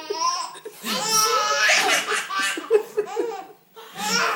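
Laughter from a young child and adults together, in short repeated pulses, dropping away briefly about three and a half seconds in.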